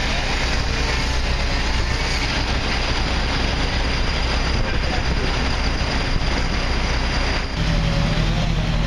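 Fire apparatus diesel engines running steadily at the fireground under a continuous rush of noise. About seven and a half seconds in, the low hum changes to a different steady drone.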